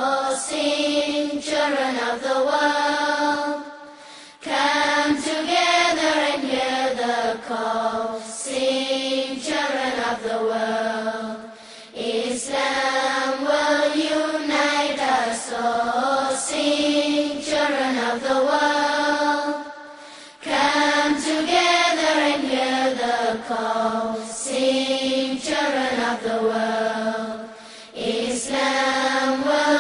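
Background music of a single voice chanting in long, gliding melodic phrases, with a short break every few seconds.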